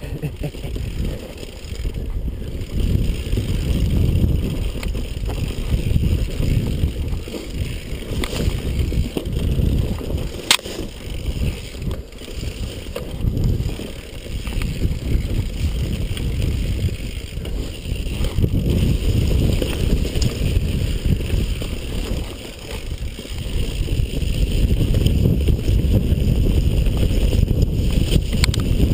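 Wind buffeting the microphone over the rumble and rattle of a mountain bike ridden fast down a dirt singletrack, with one sharp click about ten seconds in.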